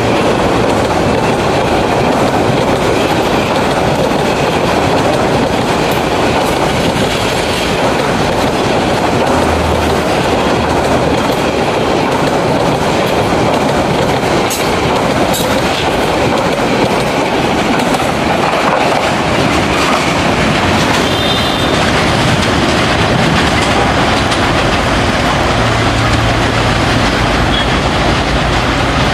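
Passenger coaches of the Chattola Express, a Bangladesh Railway train, rolling past close by on the next track, their wheels clattering over the rail joints in a loud, steady run of noise.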